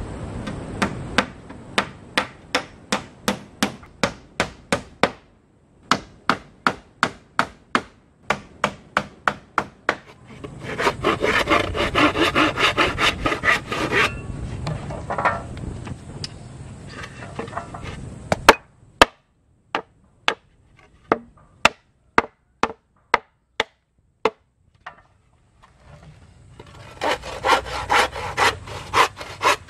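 Sharp, even hammer-like knocks, about three a second, for the first ten seconds or so. After that comes a handsaw cutting a wooden board in quick back-and-forth strokes, in two bursts, with scattered single knocks between them.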